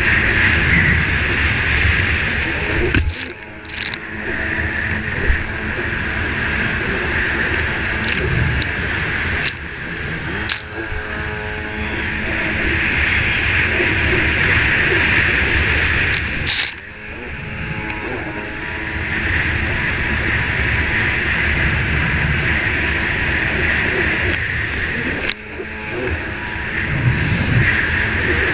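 Racing jet ski engine running hard with rushing water and wind noise. The throttle eases off sharply three times, about three seconds in, around seventeen seconds and around twenty-five seconds. Each time the noise drops and the engine note comes through for a few seconds before it opens up again.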